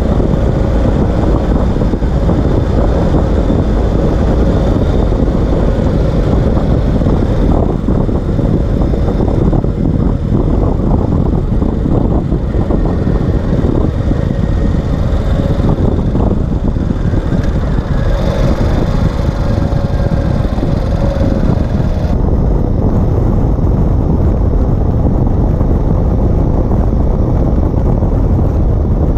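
Ural Gear Up sidecar motorcycle on the move, heard from beneath its chassis: a loud, steady rumble of the flat-twin engine and exhaust mixed with tyre and wind noise. The higher hiss drops away about three quarters of the way through.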